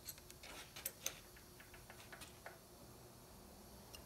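Faint, scattered light metal clicks and ticks of a hex key and steel tap holder being handled while a tap is fitted and its set screws are worked. The clicks come thickest in the first second or so, a few follow, then they die away near the middle.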